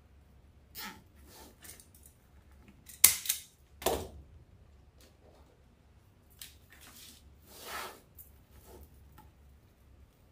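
Short rustles of poly burlap deco mesh and craft tools being handled, with two sharp knocks about three and four seconds in.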